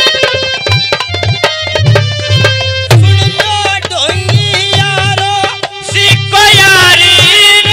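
Amplified Haryanvi ragini folk music: hand-drum strokes over held melodic tones. About three seconds in, a male singer comes in, and his singing grows louder near the end.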